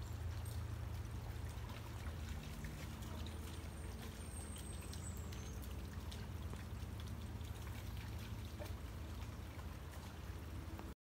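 Shallow creek trickling over stones while two dogs wade through it, with scattered small splashes and clicks of their steps, over a low steady hum. The sound cuts off suddenly near the end.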